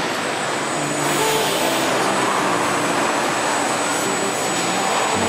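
Car body shop noise: KUKA industrial robot arms moving, over a loud steady hiss of machinery. Short tones step up and down in pitch every fraction of a second, and the hiss swells about a second in.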